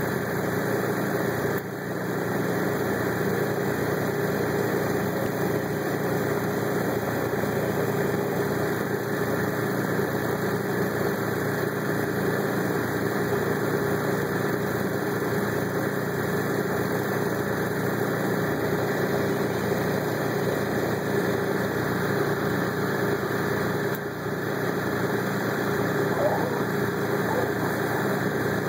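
Steady machine drone with one constant mid-pitched tone, unchanging throughout.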